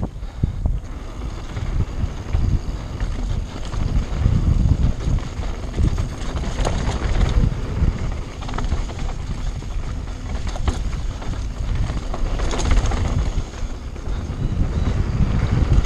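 Mountain bike descending a dirt singletrack at speed: wind buffeting the camera's microphone over the rumble of knobby tyres on packed dirt, with a few brief rattles and clatters from the bike over rough ground.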